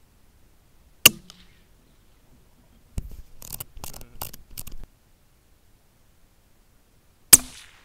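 Two rifle shots about six seconds apart, each a sharp crack with a short fading tail. Between them comes a run of quick metallic clicks, a rifle bolt being cycled.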